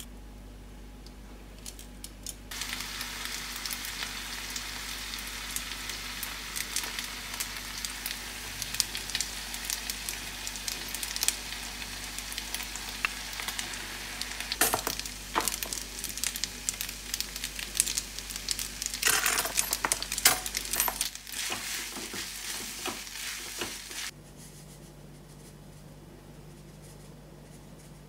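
Spaghetti, sliced sausage and vegetables sizzling in a hot frying pan as they are stirred and tossed, with scrapes and knocks of a utensil against the pan as chopped tomatoes are worked in. The sizzling starts a couple of seconds in, is loudest about two-thirds of the way through, and cuts off suddenly a few seconds before the end.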